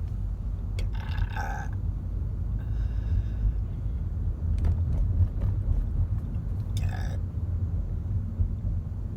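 Steady low rumble of a car driving, heard inside the cabin. A woman burps about a second in and again briefly near seven seconds.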